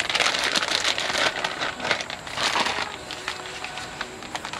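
Clear plastic bag crinkling and rustling in the hands as it is opened and a rolled tie-down strap is pulled out, loudest in the first couple of seconds.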